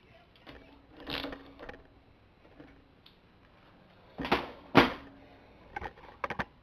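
Hand tools on a Briggs & Stratton mower engine's ignition coil bolts: a short creak of the bolt being tightened about a second in, then two sharp knocks half a second apart, the loudest sounds, and a few light clicks near the end.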